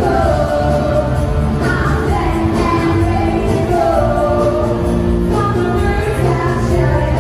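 Live band with singers performing a song on stage, sung melody over full band accompaniment, steady and loud.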